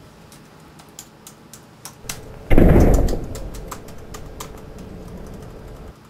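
Light clicking of typing on a laptop keyboard. About two and a half seconds in, a sudden loud low boom comes in and fades away over a second or so, leaving a faint low hum.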